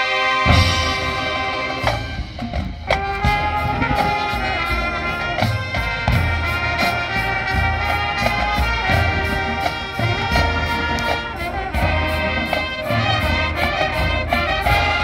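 Marching band playing: brass chords and melody over a steady percussion beat, with drum hits about twice a second.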